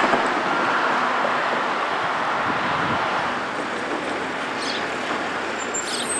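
Steady rush of passing road traffic, easing slightly over a few seconds, with two faint short high chirps near the end.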